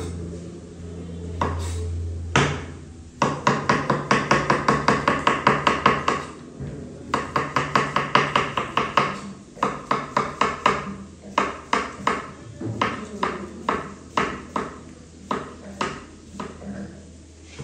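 Kitchen knife slicing a cucumber on a wooden chopping board: quick rhythmic chops of the blade onto the wood, about five a second in runs with short pauses, becoming slower and sparser in the last few seconds.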